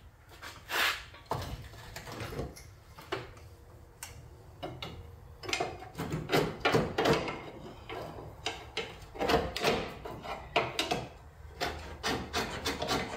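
Irregular scraping, clicking and knocking of steel parts as a new leaf-spring shackle and the spring are worked into line on a pickup truck's frame.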